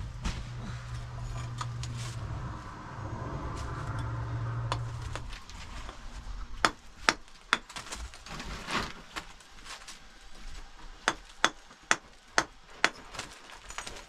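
Sharp knocks of a knife blade striking a hard white block and breaking it into chunks, in two runs of about two knocks a second. A low steady hum fills the first five seconds.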